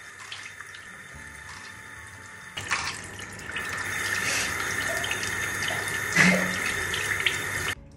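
Bathroom sink tap running, with water splashing into the basin; it gets louder and fuller about two and a half seconds in and cuts off suddenly near the end.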